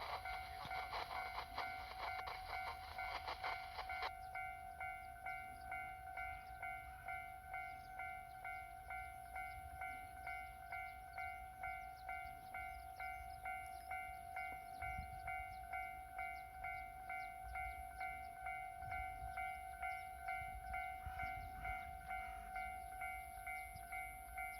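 Japanese level-crossing alarm ringing in a steady repeating pattern, about one and a half rings a second. Over the first four seconds a passing train's rattling running noise sounds with it, then cuts off sharply.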